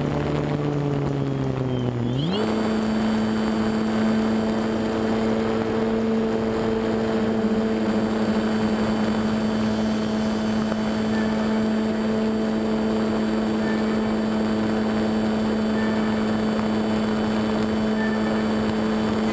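RC model airplane's motor and propeller running in flight, heard from on board the plane with wind rush over it. About two seconds in the pitch rises quickly to a higher note, then holds steady.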